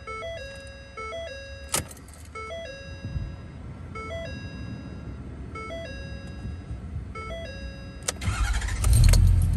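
Ford dashboard warning chime ringing a short two-note ding about every second and a half at key-on with the engine off. A click comes about two seconds in. Near the end the starter cranks for about a second and the 6.7 Powerstroke V8 turbo diesel fires right to life and settles into a steady idle.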